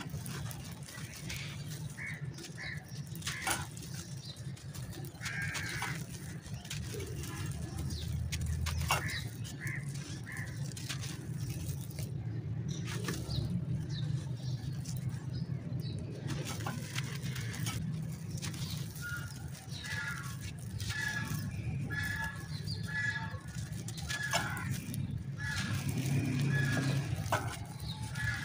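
Dry, stony clay cakes crunching and crumbling as they are squeezed and broken apart by hand, with loose grit and dust pattering down in many small crackles. Birds chirp in the background, most often near the end.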